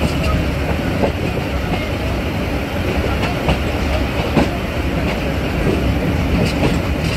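Passenger coach of a train running at speed: a steady rumble with the wheels clicking over the track a few times at uneven intervals.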